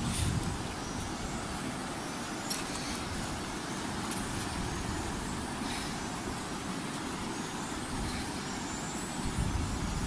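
Steady rushing of river water over rapids, with a few faint knocks in between.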